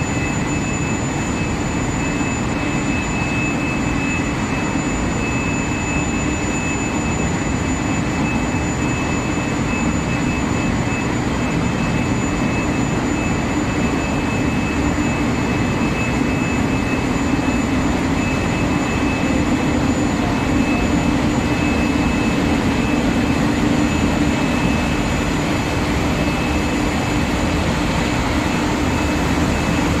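Steady industrial drone of a running induction quenching-and-tempering line for threaded steel bar, with a thin, high-pitched whine held steadily over it.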